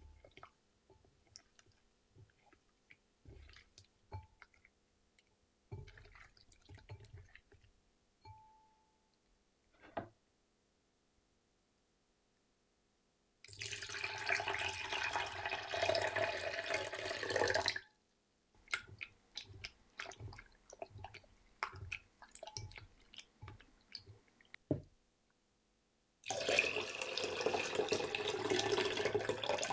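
Water poured in a steady stream into a glass bowl of shrimp, twice for several seconds each, rinsing off the starch they were scrubbed with. Between the pours, short repeated swishes of the shrimp being stirred by hand in the water; before them, soft scattered rustles and clicks of fingers rubbing the shrimp in the starch.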